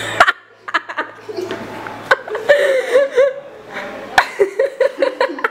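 Laughter in short, repeated bursts, with a few sharp knocks or thumps scattered through it.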